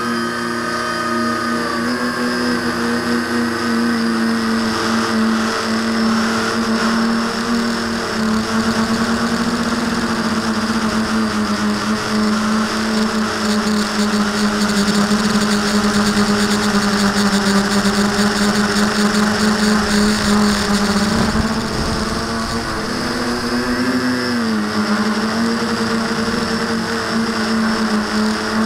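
V-tail quadcopter's electric motors and propellers humming steadily, picked up by the camera mounted on the quad itself, with the pitch dipping and rising again about three-quarters of the way through as the throttle changes.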